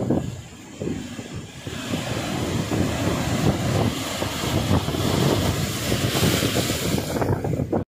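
Wind buffeting the microphone in gusty low rumbles, over the wash of surf on a beach, whose hiss swells from about two seconds in.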